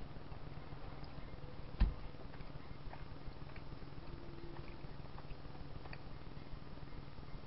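Faint clicks of someone chewing hard candy over a steady low hum, with one dull thump nearly two seconds in.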